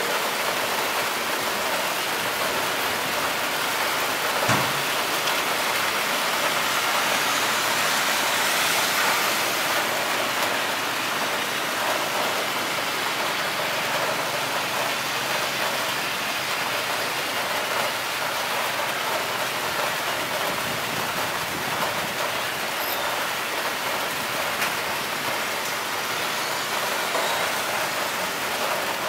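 Heavy rain falling steadily, mixed with the distant, steady noise of an Airbus A330's jet engines as it taxis at low power. There is a brief knock about four and a half seconds in.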